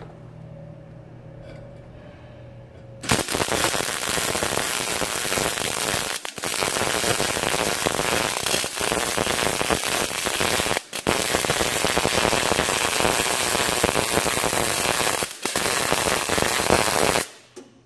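MIG welder arc crackling steadily as a bead is run along the seams of a sheet-steel box, starting a few seconds in after a low hum, pausing briefly three times, and stopping just before the end.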